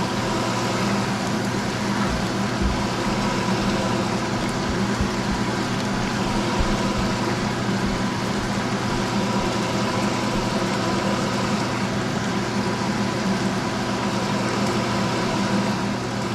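Shrimp frying in hot oil in a pan, a steady sizzle, over a constant motor hum.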